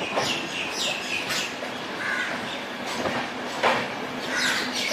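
Passenger train's LHB coaches rolling slowly through a station, heard from the open coach door: steady running noise with a few sharp clacks of wheels over rail joints.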